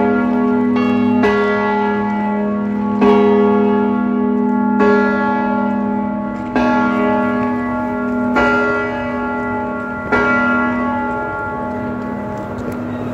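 Bells of Liverpool Metropolitan Cathedral's belfry tolling: a loud strike about every two seconds, each note ringing on over a steady hum into the next.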